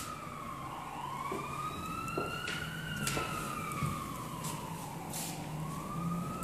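Emergency vehicle siren wailing, its pitch slowly rising and falling in long sweeps of about two to three seconds each.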